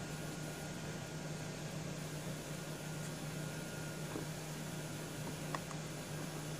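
Steady low hum and hiss of room tone, with one faint click about five and a half seconds in.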